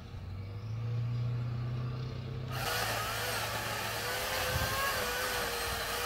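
Chainsaw cutting into a tree trunk near its roots. A low steady hum comes first; about two and a half seconds in, the chain bites and a loud rough cutting noise with a wavering motor whine sets in and keeps on.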